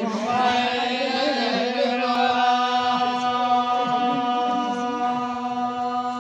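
Jagar ritual chant: a single voice holds one long, steady note after a short wavering start.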